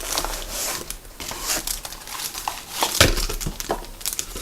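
Plastic packaging and cardboard crinkling and rustling as items are pulled out of a hard-drive box, with a sharp knock about three seconds in.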